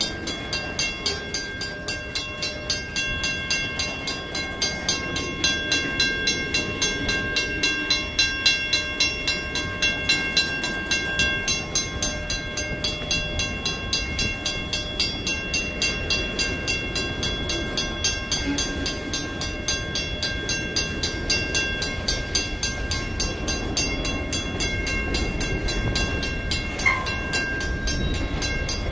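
WCH mechanical crossing bell ringing in rapid, even strikes while loaded tank cars and covered hopper cars roll slowly over the crossing with a low, steady rumble of wheels on rail. A brief squeal cuts in near the end.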